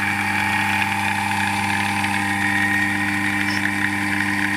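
Three-phase induction motor running steadily at speed on the bench, energised through a contactor: an even electrical hum made of several steady tones.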